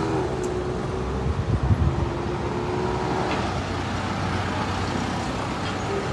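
Motor vehicle running, a steady engine hum under road noise, with a few brief louder knocks about one and a half to two seconds in.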